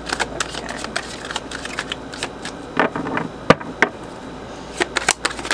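A deck of Sacred Geometry Activations oracle cards being shuffled by hand: a continual run of quick card clicks and flutters, with one sharper snap a little past halfway.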